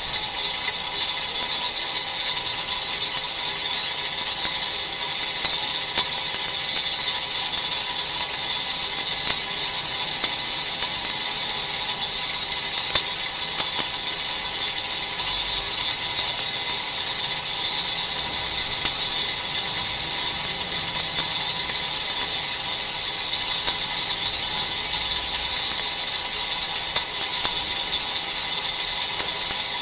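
DBL 3000 on-car brake disc lathe resurfacing a brake rotor on the car's hub, its cutting tools skimming the spinning disc with a steady, high-pitched scraping hiss over a faint motor whine.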